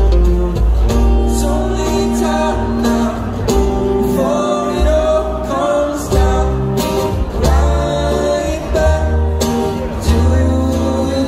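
Live acoustic band music: an upright bass and two acoustic guitars playing, with plucked notes over a steady bass and a sliding melody line above.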